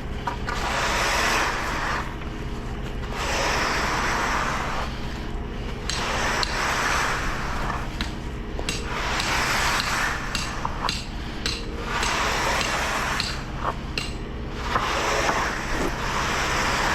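Screed and rake scraping through freshly poured wet concrete in long strokes, roughly one every two seconds, over the steady hum of the concrete mixer truck's engine.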